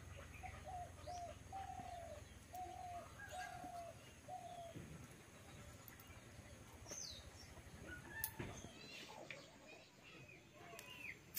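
Faint birds calling: a run of about seven short, slightly falling mid-pitched notes in the first half, then scattered high chirps and a few light clicks.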